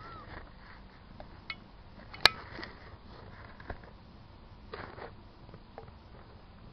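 Newborn kittens, a week old, with one short high mew at the start, then scattered soft clicks and brief rustles as they shuffle about, one sharper click a little over two seconds in.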